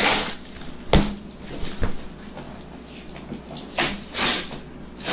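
Corrugated cardboard box flaps being pulled open and folded back by hand: bursts of scraping and rustling cardboard, with a sharp knock about a second in.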